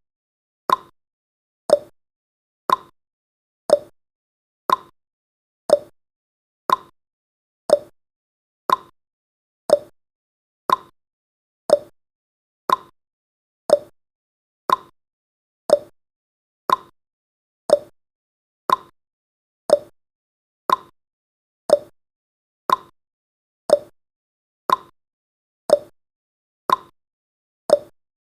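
Countdown timer's clock-style ticking sound effect: short, crisp ticks, one every second, perfectly regular.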